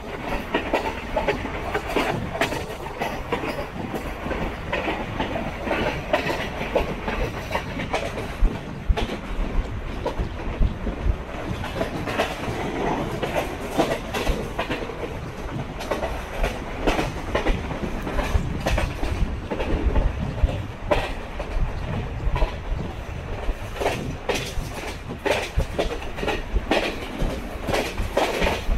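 Passenger train coach running along the track: a steady rolling rumble with frequent sharp clacks as the wheels pass over rail joints, busier in stretches.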